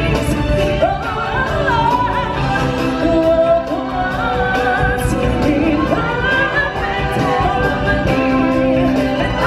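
Live stage-show music: a woman sings a wavering, vibrato-laden melody into a microphone over loud backing music, with the sound carried through the theatre's speakers.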